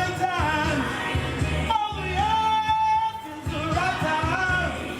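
Live swing music with a singing voice and a steady bass line underneath. About two seconds in, a long note is held for roughly a second.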